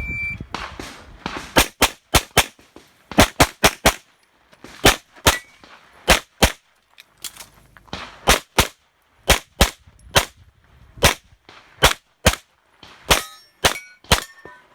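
Handgun fired in rapid strings during an IPSC stage run: about two dozen sharp shots, mostly in quick pairs, with brief pauses between target arrays. Near the end, several shots are followed by short metallic ringing from hit steel targets.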